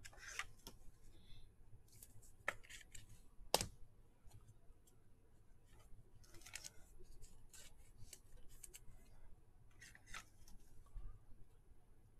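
Faint handling of trading cards and a foil card pack: soft rustling and scattered light clicks, with one sharper click about three and a half seconds in.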